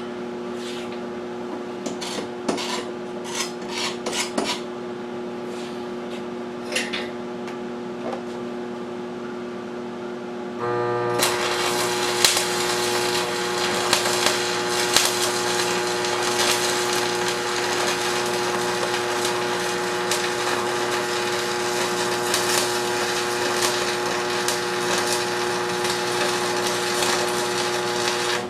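Steady hum with scattered scrapes and taps on metal for about ten seconds, then a stick-welding arc strikes and runs with a continuous crackle for the rest of the time: a 3/32-inch 7018 rod being tested on scrap steel, electrode positive.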